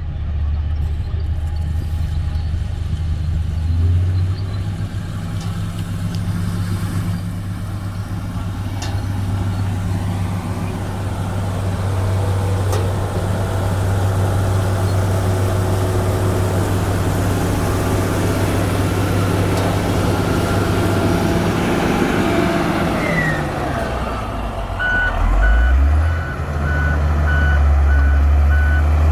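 Komatsu GD655 motor grader's diesel engine running under work, its pitch stepping up about four seconds in, then dropping and picking up again near the end. In the last few seconds a reversing alarm starts beeping repeatedly.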